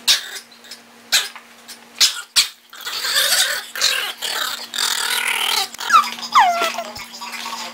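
Small puppy growling in play while wrestling with a person's hand, after a few sharp clicks and taps. Near the end come a couple of high squeaks that slide down in pitch.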